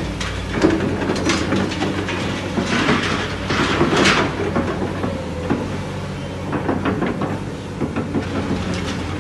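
Heavy construction machine's diesel engine running steadily under a dense, irregular metallic clanking and rattling.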